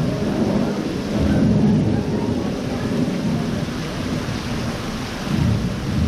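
Simulated rainstorm in an indoor rainforest exhibit: thunder rumbling and swelling over a steady hiss of falling rain.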